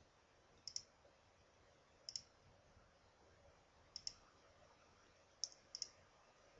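Computer mouse button clicking four times, one to two seconds apart, each click a quick double tick of press and release, over faint room hiss.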